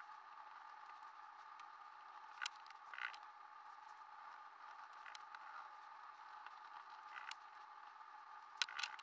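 Faint scratching and a few sharp ticks of a steel scribe point dragged over the coated face of an axe head, cutting the lines of an acid-etch design, over a steady background hum.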